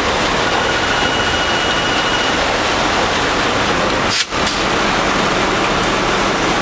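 Steady, loud machinery roar in a ship's engine room, with a faint thin whistling tone for the first couple of seconds. A brief drop in the sound comes a little after four seconds.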